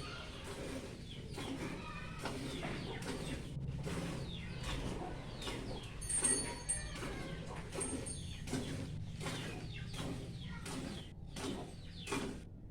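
Birds calling, with chicken-like clucks and a few high chirps.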